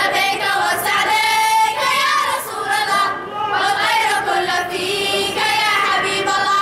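A group of girls singing a nasheed together into microphones, with a brief pause between phrases about three seconds in.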